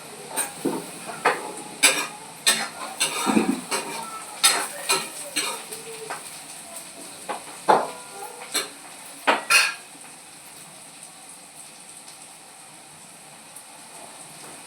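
A metal spoon stirring green beans and potatoes frying in a pan, with irregular clinks and scrapes against the pan over a steady sizzle. The knocking stops after about ten seconds, leaving the sizzle alone.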